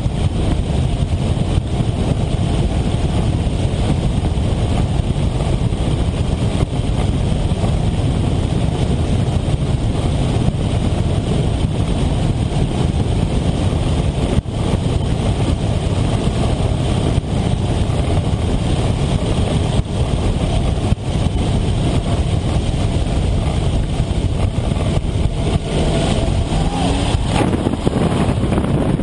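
Wind rushing over the microphone on a weight-shift trike's wing, mixed with the steady running of its pusher engine and propeller, through the approach to the runway. A brief change in pitch comes near the end.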